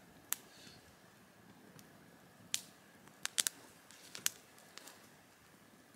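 Wood campfire crackling, with about seven sharp pops scattered over a few seconds, several of them in quick succession a little past the middle.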